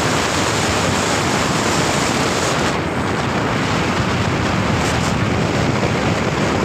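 Steady rushing wind and road noise of a vehicle driving at highway speed, with wind buffeting the microphone.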